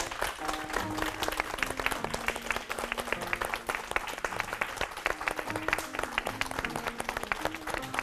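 Audience applauding steadily, with a programme's closing music playing underneath.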